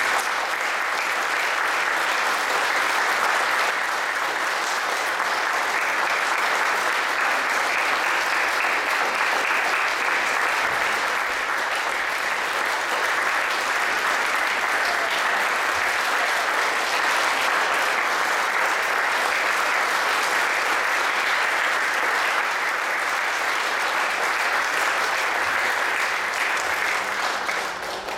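Audience applauding, a steady sustained ovation that dies away near the end.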